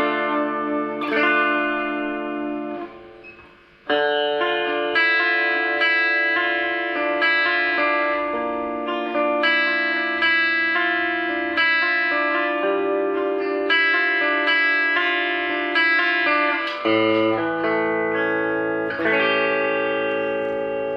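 Fujigen J-Standard Mustang electric guitar played through an amplifier: picked chords and single notes that ring on, with a short drop-off about three seconds in before the playing picks up again.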